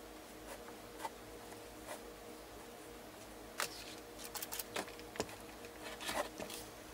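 Scattered light clicks and taps from craft supplies being handled on a work table, most of them bunched in the second half, over a faint steady hum.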